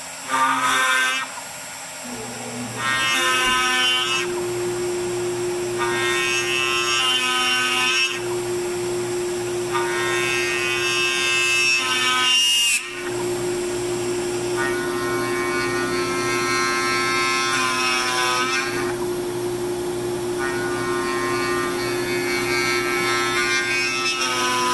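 CNC router spindle turning a half-inch twist drill bit at 500 RPM, peck drilling into a wooden 2x4. A steady spindle hum runs underneath, with a burst of cutting noise every few seconds as the bit plunges about 0.3 inch at a time and retracts to clear chips. The bit runs true, so it cuts quietly, without the rattle of run-out.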